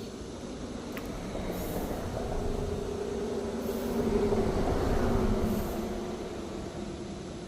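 A vehicle passing by, its noise and a low hum swelling to a peak about four to five seconds in and then fading away.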